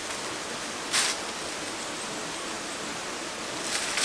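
Steady rushing outdoor noise with no distinct tones, broken by two brief louder hisses, one about a second in and one near the end.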